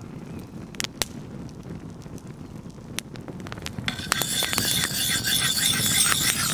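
Campfire crackling with a few sharp pops. From about four seconds in, a louder continuous high scraping as a red plastic edge guard is slid along the steel blade of a knife.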